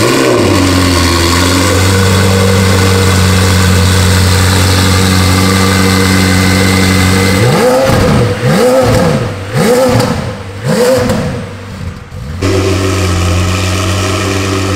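McLaren 720S twin-turbo V8 running loud through a freshly fitted Capristo decat straight-pipe exhaust, idling just after a cold start. About halfway through it is revved four times in quick succession, then drops back to a steady idle.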